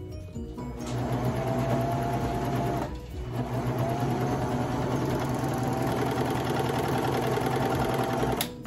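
Baby Lock Vibrant serger stitching a seam. The motor speeds up about a second in, stops briefly around three seconds, then runs steadily again until it stops near the end.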